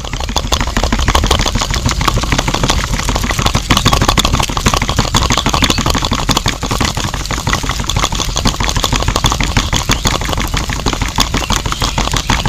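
Small motor of a homemade mini concrete-mixer model running steadily, with a dense, rapid clatter.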